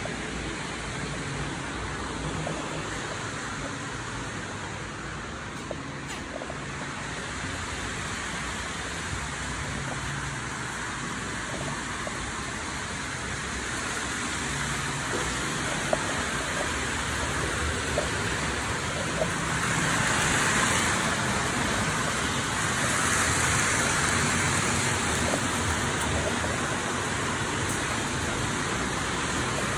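Model trains running on the track of a layout: a steady rolling rumble with light clicks, swelling louder twice in the second half as a train passes close by.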